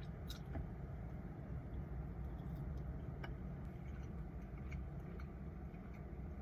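Steady low background rumble with a few faint clicks and taps scattered through it.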